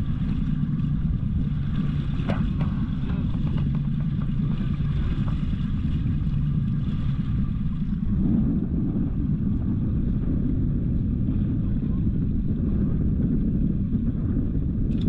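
Fishing boat's motor running steadily, a low, even rumble, as when trolling lures behind the boat.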